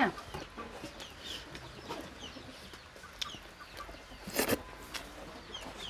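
Chickens clucking in short, scattered calls, with one louder, sharper sound about four and a half seconds in.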